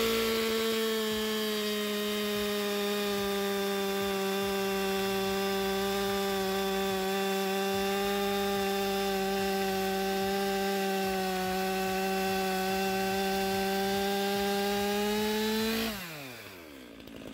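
Stihl MS 462 two-stroke chainsaw, on its stock single-port muffler, held at full throttle while cutting through a tan oak log, its engine note steady under load. Near the end the throttle is released and the pitch falls as the saw winds down.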